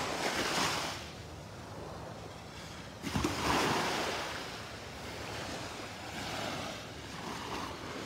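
Small waves washing onto a sandy beach, the surf swelling and falling back in turn, with the loudest wash about three seconds in. Some wind on the microphone.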